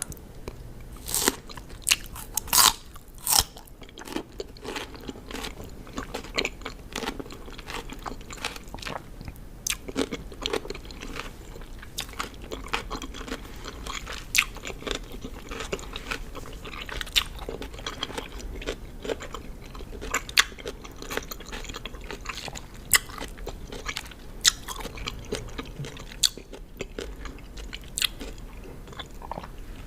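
Close-miked biting and chewing of raw cucumber: crisp, wet crunches throughout, with the loudest bites in the first few seconds.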